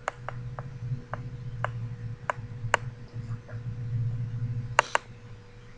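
A person drinking soda from a glass bottle: a run of short, irregular clicks from swallowing and from the bottle at the lips, with two sharper clicks close together near the end.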